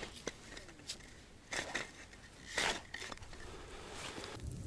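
A few light clicks and two short scraping, crunching sounds from handling a homemade wooden ice-fishing rod and its wire stand on the ice.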